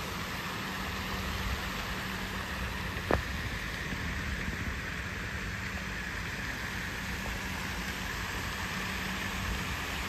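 Steady splashing of a park fountain's spray falling onto the lake, over a steady low hum, with one sharp click about three seconds in.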